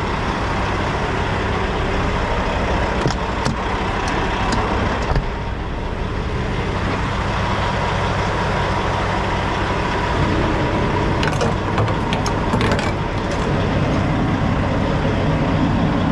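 Semi-truck diesel engine idling steadily, with a few light clicks and knocks about three to five seconds in and again around eleven to thirteen seconds in.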